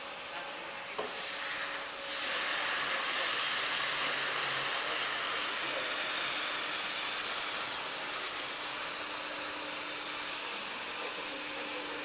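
Walk-behind automatic floor scrubber running, its motors giving a steady whirring hum. A click comes about a second in, and the machine gets louder about two seconds in, then holds steady.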